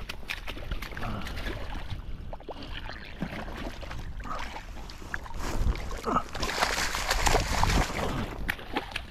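Wind buffeting the microphone over water noise, with scattered small clicks and a louder rushing stretch about six seconds in.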